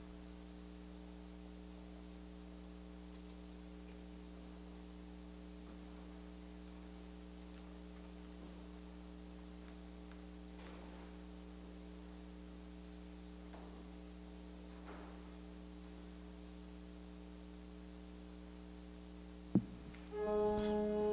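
Faint, steady electrical mains hum, with a sharp click about 19.5 seconds in. About a second later an organ starts playing held chords.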